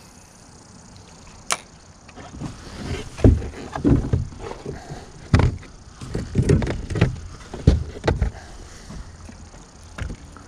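Irregular low thumps and knocks on a fishing boat, loudest through the middle, with a single sharp click about a second and a half in.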